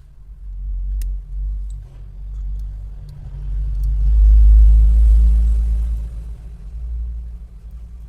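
A road vehicle passing: a low rumble that swells to a peak about halfway through and then fades.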